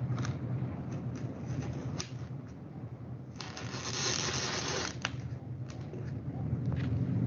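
A thin wooden stick is worked into a block of rigifoam (polystyrene foam), giving small scattered clicks and a scratchy rustle of about a second and a half near the middle, over a low steady hum.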